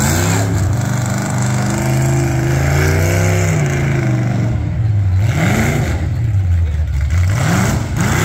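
Demolition derby car engine revving: it climbs and holds high for about a second and a half, falls back, then is blipped up and down in quick rises about once a second.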